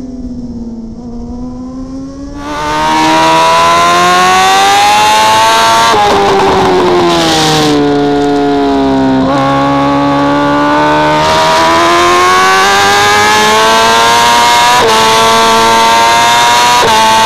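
BMW superbike's inline-four engine at racing speed, heard onboard. It is quieter for the first couple of seconds, then much louder. The engine note drops twice as revs come down, then climbs steadily under hard acceleration, with quick sharp drops near the end as it shifts up.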